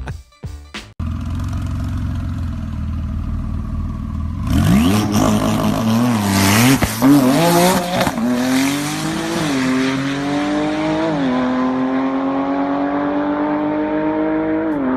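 A Porsche's engine rumbles steadily at the start line, then launches hard about four and a half seconds in. Its note climbs and drops back through several gear changes as the car accelerates away, growing duller as it pulls into the distance.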